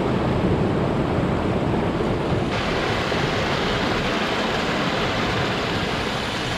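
Floodwater rushing down a normally dry desert wash after heavy rain: a steady, dense roar of water that gets brighter and hissier a little over two seconds in.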